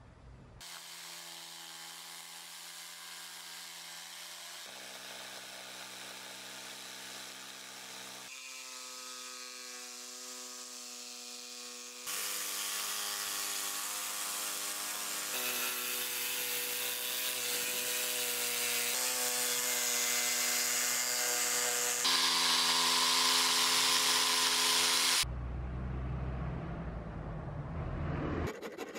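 Electric jigsaw cutting an acacia board along the outline of an axe handle: a steady, even motor-and-blade tone in several short stretches, its pitch shifting slightly from one to the next and louder from about twelve seconds in. About three seconds before the end it stops, followed by a few seconds of low rumble.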